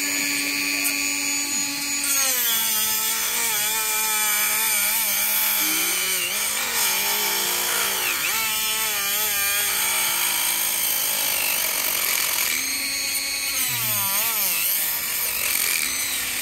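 Flexible-shaft rotary tool with a burr grinding into a horse's hoof wall, cutting away the horn to reach a keratoma. It runs as a continuous whine that dips and recovers in pitch several times as the burr bites into the horn.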